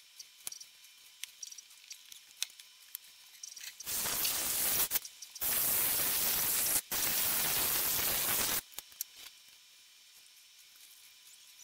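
Aerosol can of Gillette shaving cream spraying, three long hissing bursts in a row starting about four seconds in. Faint sticky clicks from fingers working the wet cream come before and after.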